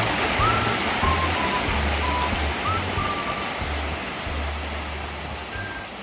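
Small mountain-stream waterfall, water rushing steadily over rocks, with soft background music over it; the whole gradually fades out.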